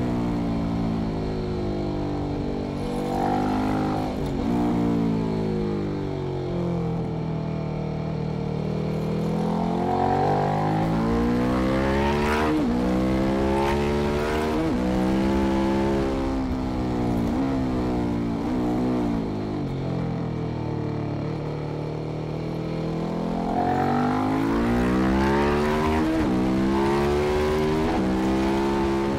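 KTM 1190 Adventure's V-twin engine, fitted with Arrow exhaust headers, at full track pace. The pitch climbs hard under acceleration, drops at each gearshift, and falls away on braking into corners, over a steady rush of wind and tyre noise.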